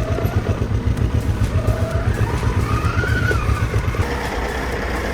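Heavy log truck's diesel engine working hard, a strong pulsing low throb with a whine that rises and falls midway; it settles to a steadier note near the end.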